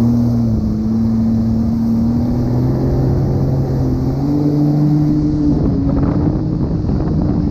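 Personal watercraft (jet ski) engine running at speed while towing a tube, a steady drone that rises a little in pitch about four seconds in, over the rushing of spray from the wake.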